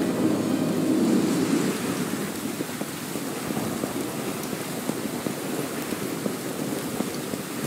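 A steady hiss with a dense, fine patter of small ticks, like rain. Fading music is heard under it in the first second or two.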